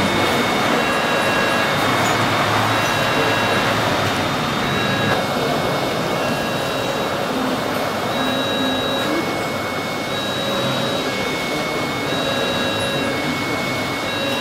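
LGB garden-scale model trains running on the layout: a steady whir of small electric motors and gears with the rumble of wheels on the track, and a faint high whine that comes and goes.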